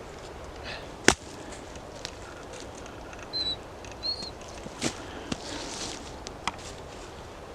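Dead sticks snapping and cracking: one loud sharp crack about a second in, then a few lighter snaps and clicks. Two short high chirps come in the middle.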